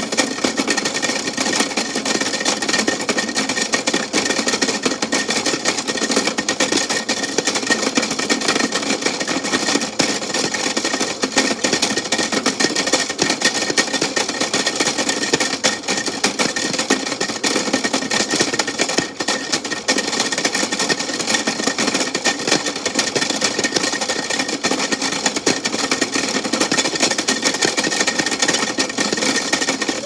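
Toy washing machine running, its small motor and plastic drum making a steady buzzing rattle with a thin high whine throughout.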